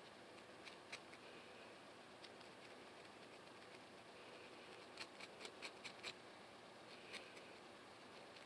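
Faint scratching of a comb's tail against a dandruff-flaked scalp between braids. A few scattered scratches come early, then a quick run of about seven scratches about five seconds in, and one more near the end, over a low hiss.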